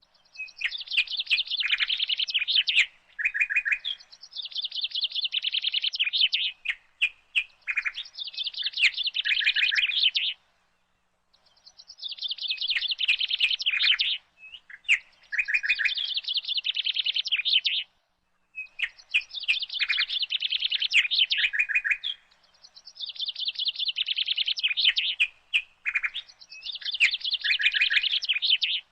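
Bird song: a songbird singing repeated rapid, chattering phrases, each about two to four seconds long, with short pauses between them.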